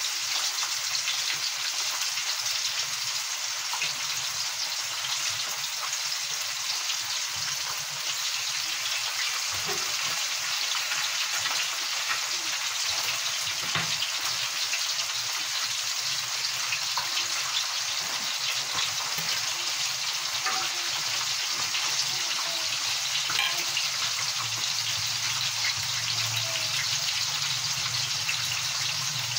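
Semolina-coated fish pieces frying in hot oil in a frying pan: a steady sizzle with small scattered crackles.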